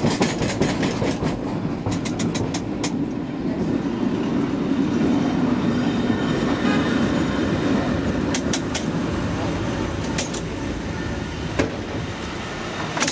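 San Francisco cable car under way: a steady rumble with sharp clacks and rattles, most of them in the first few seconds and a few more later.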